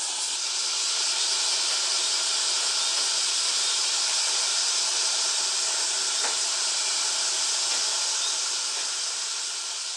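A steady, even high hiss with no separate events. It swells slightly about a second in and fades near the end.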